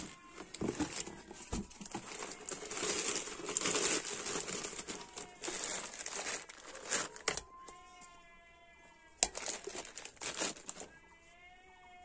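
Thin plastic packaging bags crinkling and rustling as an electric kettle and its base are pulled out and unwrapped, with sharp handling clicks. Two drawn-out animal calls sound in the background, one about two-thirds of the way in and another near the end.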